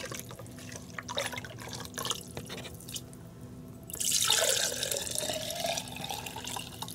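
Faint clinks and small splashes as a bowl dips into chicken broth in a plastic tub. Then, about four seconds in, the broth is poured from the bowl into a glass mason jar with a steady splashing pour.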